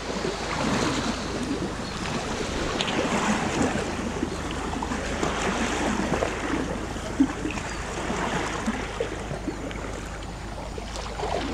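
Water sloshing and swishing as an elephant wades through a pond, an uneven noise that swells and eases.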